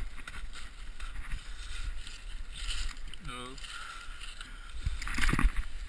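Low rumble and rustling of clothing and gear on a body-worn action camera's microphone as a fallen skier moves about in the snow. A short grunt comes about three seconds in, and a louder scuffle near the end.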